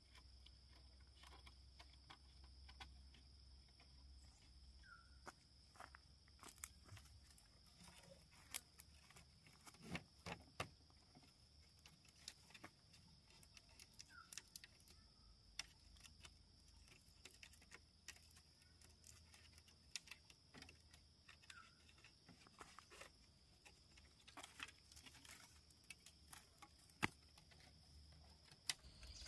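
Faint steady insect chorus, a continuous high hum, with scattered sharp clicks and taps throughout and a few short chirps.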